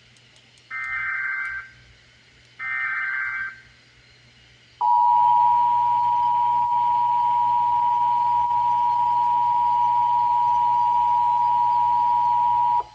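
Emergency Alert System tones: two SAME header bursts, each a warbling digital data chirp of about a second, then about a second later the EAS two-tone attention signal (853 and 960 Hz together), a loud steady tone held for about eight seconds. This marks the start of a station's required monthly test.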